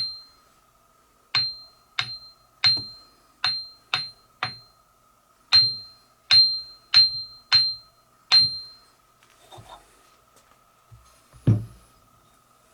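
Grinding wheels from a bench grinder are struck in a ring test: about a dozen sharp taps, each followed by a short, clear ring, in two runs of taps, seven and then five. The clear ring shows the wheels are not cracked. A dull thump comes near the end.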